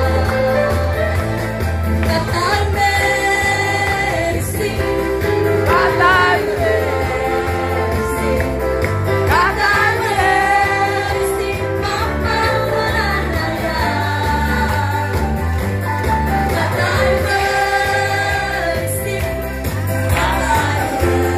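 Amplified pop-style song with singing over a heavy, steady bass line, playing loud without a break.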